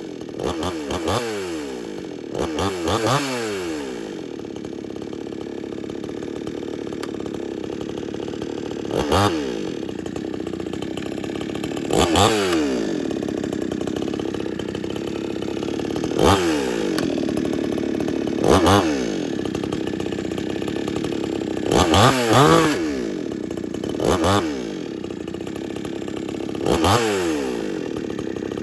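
62cc two-stroke chainsaw idling slowly and steadily, blipped to brief revs about nine times at irregular intervals of a few seconds, each rev rising sharply in pitch and dropping straight back to the slow idle.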